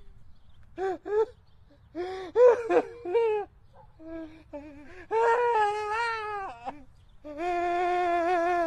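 An elderly man's voice wailing without words: a few short cries, then two long, drawn-out wails in the second half.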